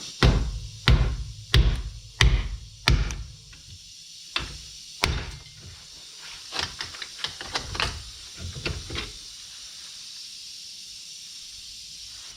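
Metal-on-metal hammer blows. Five heavy, ringing strikes come about two-thirds of a second apart, then two more, then a run of lighter knocks, as the remains of an old front wheel bearing are driven out.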